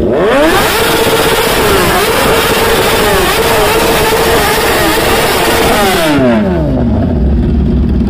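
Kawasaki ZX-10R's inline-four with an aftermarket slip-on exhaust being revved hard. The revs climb quickly and are held high, wavering slightly, for about six seconds, then drop back to a steady idle.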